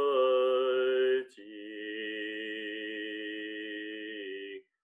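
A deep voice chanting in long held notes, a Zhineng Qigong chant: one note breaks off about a second in, and the next is held steady for about three seconds.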